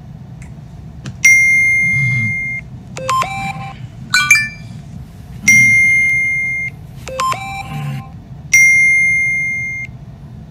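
Phone notification sounds going off one after another: three bell-like dings, each ringing out and fading over about a second, with short chirping alert tones in between.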